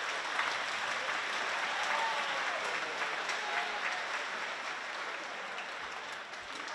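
Audience applauding, a dense run of many hands clapping that slowly dies down toward the end.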